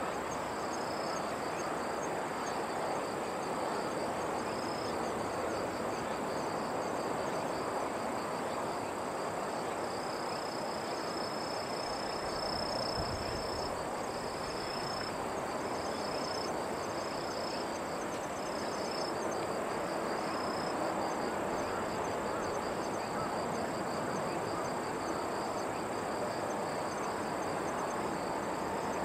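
Insects trilling steadily at a high pitch, with a second chirping call that comes and goes in short stretches, one held for several seconds about halfway through. Underneath is a steady, even outdoor background noise with no aircraft passing.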